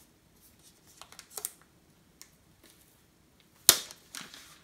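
Handling noises from unpacking an Apple Magic Keyboard from its box: a few faint taps, then one sharp click a little over three and a half seconds in, followed by a couple of softer clicks.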